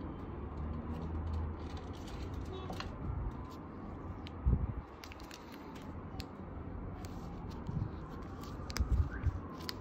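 Gloved fingers handling small binocular parts, a glass prism and a plastic eyepiece housing, with light clicks and a few low thumps, the heaviest about halfway and again near the end. A siren wails faintly in the background, slowly rising and falling.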